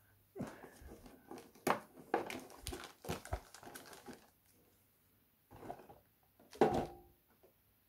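Clear plastic blister tray and polythene bag crinkling and crackling in irregular bursts as a figure is pulled out and handled, with a louder, short creak about seven seconds in.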